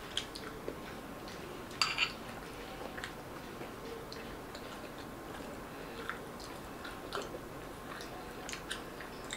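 Metal spoon clinking and scraping against a small ceramic bowl, with chewing between the clinks. The loudest is a pair of sharp clinks about two seconds in.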